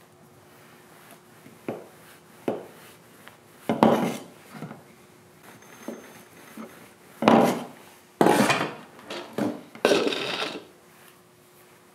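A white plastic roller knocking and rolling on a wooden workbench as it flattens a lump of putty into a sheet, in a string of separate knocks and rubbing sounds. Near the end a plastic cup is handled on the bench, with a few louder knocks.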